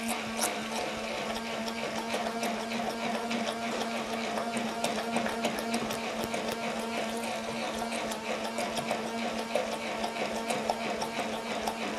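Electric hand-held immersion blender running steadily in a glass bowl of carrot cake batter, with many small clicks and rattles as the blade head knocks against the glass. It is grinding the grated carrot finer into the batter.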